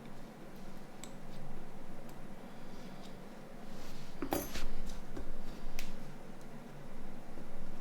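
Scattered small clicks and taps from handling small plastic parts, over a steady low hum. The sharpest clicks come about four and a half and six seconds in.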